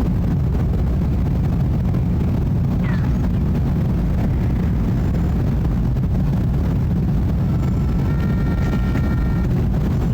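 Steady low rumble of a jet airliner climbing out overhead, holding an even level throughout. A bird gives a short chirp about three seconds in, and a brief higher call comes near the end.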